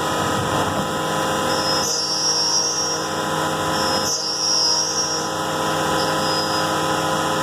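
CNC mill spindle at 10,000 RPM driving a 5/16-inch carbide three-flute end mill through counterbore cuts, a steady whine with a little high-pitched singing from the cutter. The singing rises twice, about two and four seconds in, each time for roughly a second.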